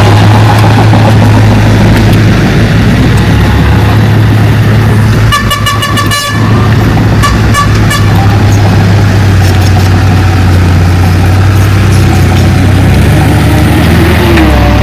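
Heavy diesel earthmoving machinery running steadily and loud. A vehicle horn sounds twice, about five seconds in and again about a second later.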